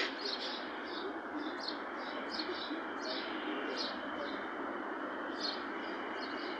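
Small birds chirping in short, quick notes, several a second, over steady background noise.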